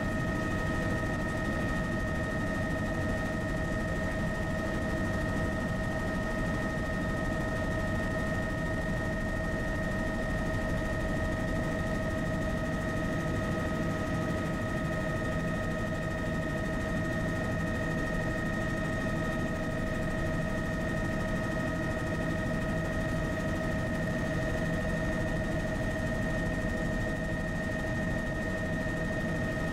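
Tour helicopter in steady flight, heard on board: a constant low engine and rotor rumble with a steady high whine over it.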